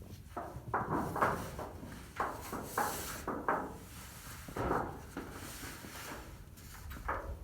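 Irregular scrapes and knocks from sheet-metal roofing being handled during building work.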